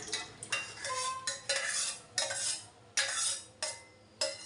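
Spoon scraping the inside of a stainless steel saucepan to pour thick milk-and-sago pudding into a steel bowl. It comes as a series of short scrapes, roughly two a second.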